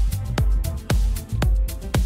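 Background music with a steady beat of about two strokes a second.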